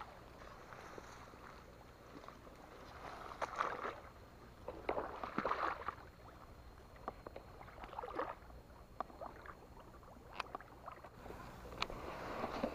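Intermittent water splashing on a pond surface as a fishing lure is worked back across it, with a few sharp clicks near the end.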